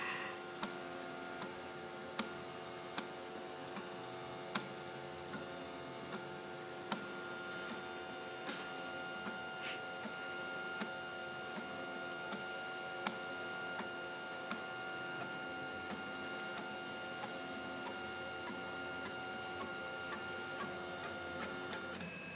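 Makerbot Thing-o-Matic 3D printer running a print: its motors give a steady whine of several held tones, with short sharp clicks every second or so.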